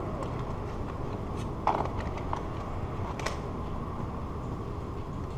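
A few sharp clicks and knocks of old weather stripping being worked out of the door frame's kerf slot by hand, the loudest about a second and a half in and another a little past three seconds, over a steady low background noise.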